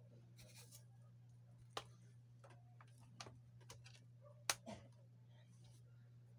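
Faint scattered clicks and knocks of a laptop power adapter's plug being handled and pushed into the laptop's charging port, the loudest click about four and a half seconds in, over a steady low hum.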